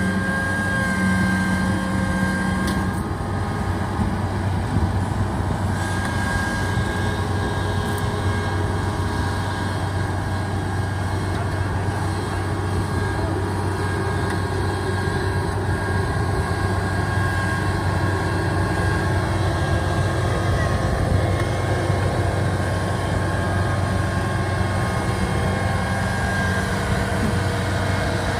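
Kubota rice combine harvester's diesel engine running steadily under load as the machine crawls on its rubber tracks up a steep bank. A low, even engine drone carries a steady high whine over it.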